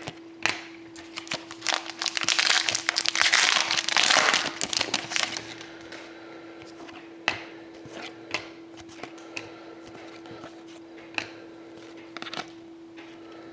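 Hands shuffling through a stack of thick chrome-finish Panini Select hockey cards: a few seconds of dense sliding and rustling, then scattered sharp clicks as single cards are flicked to the front. A faint steady hum runs underneath.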